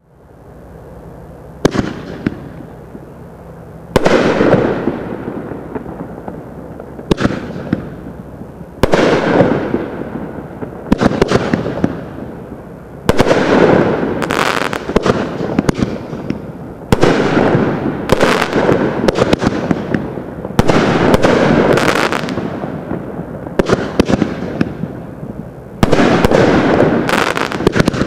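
Consumer aerial firework cakes, a 3-inch Crackling Brocade and a King's Crown Gold Brocade, firing shot after shot about every two seconds. Each shot is a sharp report followed by a fading crackle.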